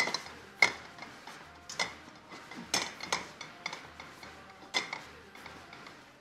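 Metal cookware clattering: a pan and metal utensils knocked and set down, giving a string of sharp, irregular clinks with a short ring. The pan is being cleaned out for reuse.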